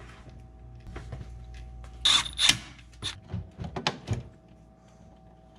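Hands working inside a gas furnace cabinet, over a faint steady hum. A loud rustling clatter comes about two seconds in, followed by a quick run of sharp clicks and knocks from wiring, the control board and sheet-metal parts being handled.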